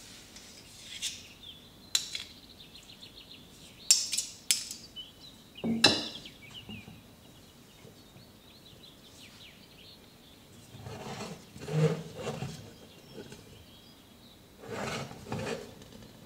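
Kitchen utensils clinking and knocking against dishes: a handful of sharp metallic clinks, some with a brief high ring, in the first six seconds, then softer, duller handling sounds later on.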